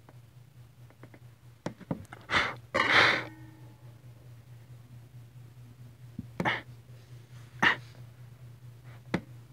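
A person's short, sharp breaths, four of them, the loudest about three seconds in, with a few light clicks, over a steady low hum.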